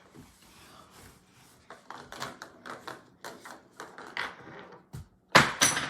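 Irregular clicks and taps of small hard toy pieces being handled, with a louder clatter near the end.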